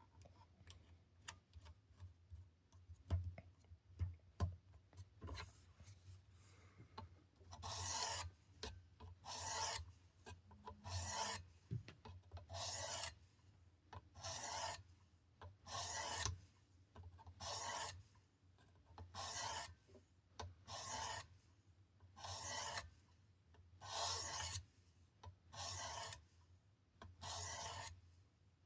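Knife edge being sharpened on the 600-grit stone of a Worksharp Precision guided sharpener: about a dozen even strokes of the stone along the blade, roughly one every one and a half seconds, each a rasping scrape. Before the strokes begin there are several seconds of light clicks and taps.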